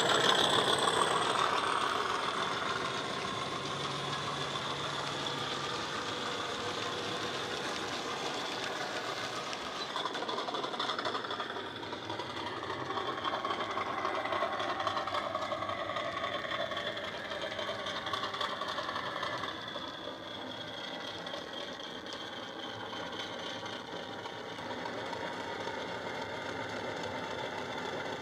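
Class 50 diesel engine sound from a model locomotive's DCC sound decoder, played through an EM1 speaker and a small tablet speaker. The engine note runs steadily with slowly rising and falling tones. It is loudest at the start as the locomotive passes close, then quieter, and swells again partway through.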